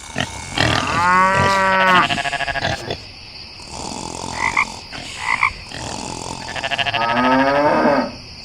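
Two long, drawn-out animal calls about five seconds apart, each breaking into a fast rattling pulse, with two short higher calls between them.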